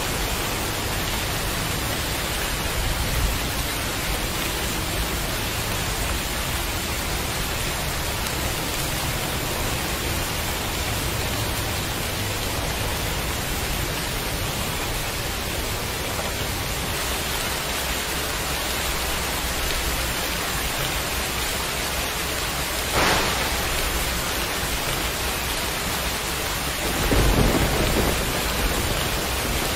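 Steady heavy rain, an even hiss of falling drops. About 23 seconds in comes a brief sharp crack, and near the end a short, louder low rumble.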